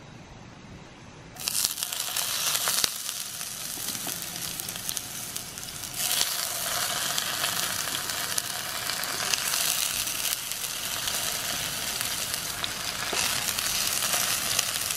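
Potato slices sizzling in a hot cast iron skillet. The sizzle starts about a second and a half in and gets louder about six seconds in as more slices go into the pan.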